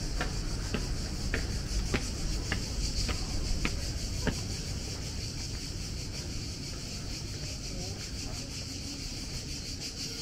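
Footsteps walking on stone paving, a little under two steps a second, fading out about halfway through. Behind them a steady high buzz of cicadas.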